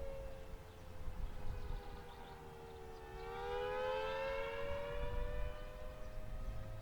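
Federal Signal Thunderbolt 1000T siren sounding the attack (wavering) signal with its blower not working. Its two-note chord slides down in pitch, then rises again and grows louder about three seconds in.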